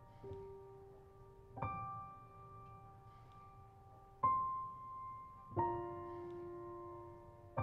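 Slow, soft solo piano background music: single notes and chords struck about once every one to two seconds, each left to ring and fade.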